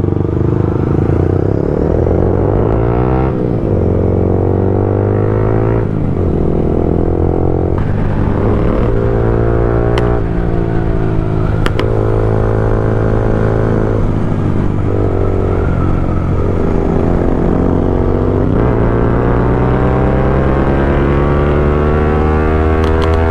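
Motorcycle engine pulling away and working up through the gears: the note rises as it accelerates and falls back at each upshift, many times over. Two sharp cracks stand out about halfway through.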